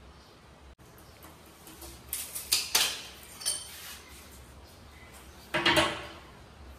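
Short bursts of metal clinking and tapping from cabinet handle hardware being handled against a laminated kitchen cabinet door: a cluster about two seconds in, a single clink a little later, and another cluster near the end.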